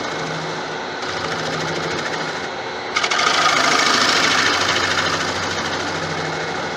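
Wood lathe running with a steady hum while a bowl gouge cuts into the centre of a spinning wooden bowl's curved bottom, a hissing shaving sound that grows louder about three seconds in and eases off again.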